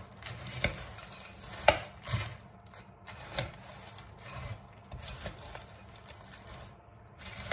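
Metal spoon stirring broken petit-beurre biscuits into chocolate pudding in a glass bowl: scattered clicks of the spoon against the glass and a faint rustle of biscuit pieces, with the sharpest click a little under two seconds in.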